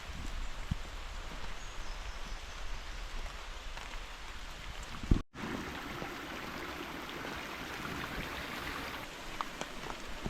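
Steady noise of water on a rainforest walking track, with a short click and a brief drop-out about five seconds in.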